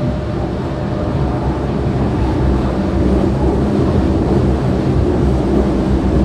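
Berlin U-Bahn G1/1E small-profile train running at speed through a tunnel, heard from inside the car: a loud, steady rumble of wheels and running gear that grows slightly louder as it goes.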